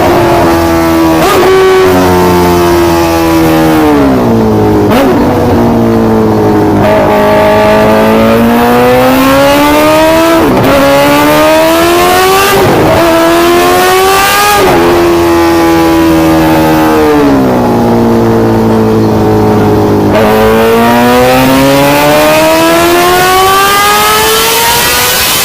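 Superbike-style engine sound, revving up and down: its pitch climbs and falls in long, smooth sweeps lasting several seconds, twice over, with a few short clicks between the sweeps.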